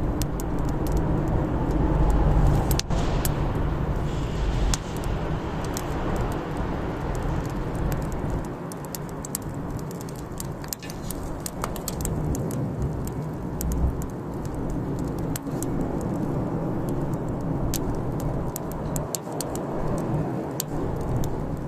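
Wood bonfire crackling, with frequent sharp pops and snaps over a steady low rumble.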